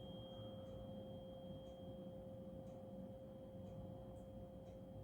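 Tuning fork ringing faintly: one steady pure tone with a faint higher overtone, held without fading.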